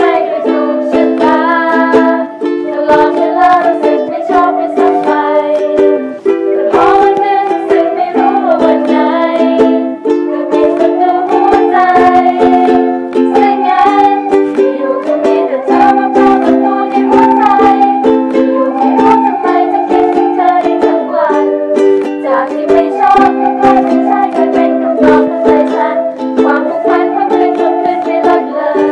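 Ukuleles strumming chords in a steady rhythm, with a melody line gliding above them: an amateur live cover of a Thai pop song.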